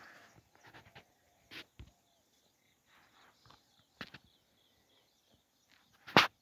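Scattered rustles and light clicks of someone handling a camera and moving through shrubby brush, with one sharp knock about six seconds in.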